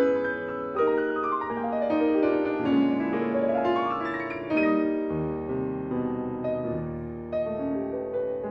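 Background piano music, a run of melody notes with deeper bass notes joining about halfway.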